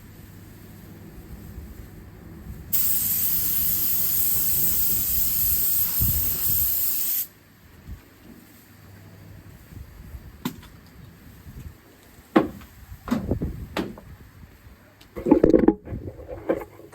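Paint spray gun spraying a bumper in one continuous hiss of about four and a half seconds, starting and stopping sharply as the trigger is pulled and released. A few short knocks follow.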